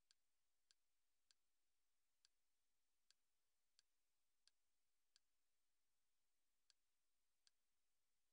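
Near silence broken by about ten faint, sharp clicks at uneven intervals, roughly half a second to a second and a half apart, each marking a step through a media-player menu.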